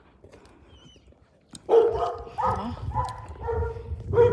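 A dog barking, about five barks in quick succession starting a little over a second and a half in, with a low rumble underneath.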